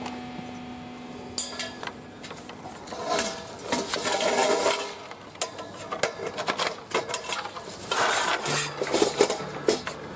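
Aluminium mast tubes clinking, knocking and scraping as they are handled and one tube is slid into the sleeve of another, with bursts of sliding scrape in the middle and near the end.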